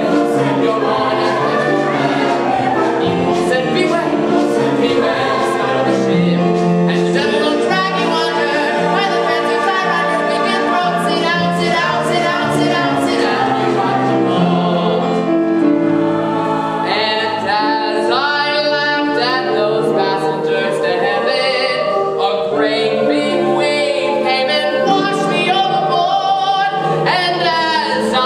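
Live singing of a Broadway show tune: a male lead with the ensemble chorus, sung over musical accompaniment.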